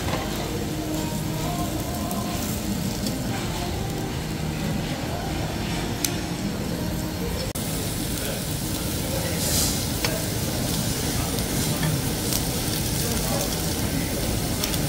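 Thick pork pieces sizzling on a tabletop barbecue grill plate. A few sharp metal clicks come from tongs and scissors as the meat is cut and turned.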